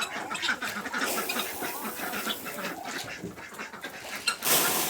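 A group of domestic ducks quacking over and over in quick, overlapping calls. Near the end comes a brief, loud rushing hiss.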